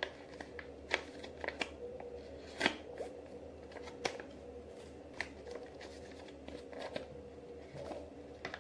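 Paper packet of a sheet face mask being torn open and handled by hand: scattered crinkles and sharp paper snaps at irregular intervals.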